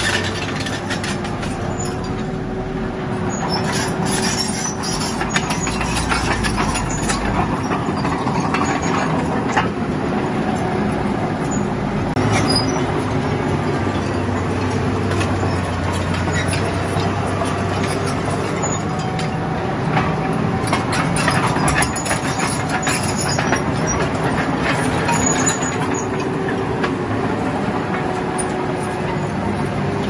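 Small crawler bulldozer's diesel engine running steadily under load, with its tracks clanking and rocks knocking and scraping as the blade pushes a pile of broken stone and soil.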